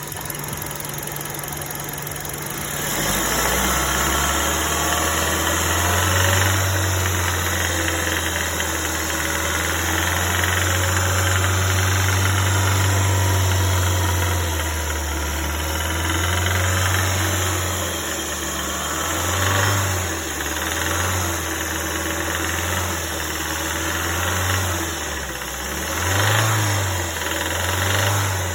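Hyundai Solaris engine running with a knock in it. Its low note grows louder about three seconds in, then rises and falls in small swells through the second half.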